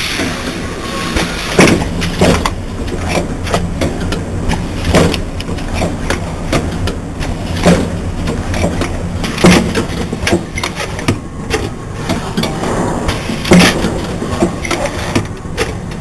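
Automatic yogurt-cup filling and sealing machine running: a steady low mechanical hum with frequent sharp clacks from its moving parts, spaced unevenly through the cycle.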